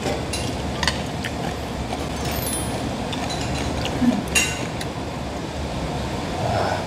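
Metal chopsticks clinking against noodle bowls a few times, sharp single clicks, while noodles are stirred and lifted, over steady background noise.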